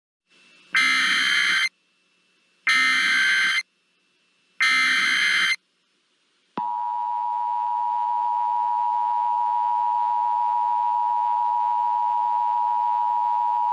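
Emergency Alert System tones: three short bursts of the digital SAME header, each just under a second long with about a second of silence between them. About six and a half seconds in, the steady two-tone attention signal begins and holds, announcing an emergency alert.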